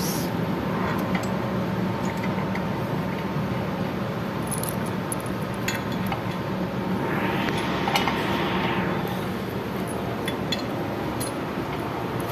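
Light metallic clinks and taps as a metal clamp is handled and positioned on a machine's metal base plate, over a steady background hum. A louder hiss-like swell lasts about two seconds around the middle.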